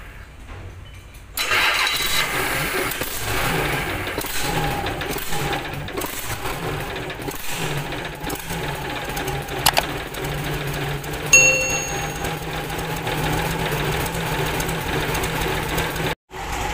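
Freshly overhauled Mitsubishi Fuso 6D22 straight-six diesel engine firing up about a second and a half in, then running steadily. A brief sharp sound comes about eleven seconds in.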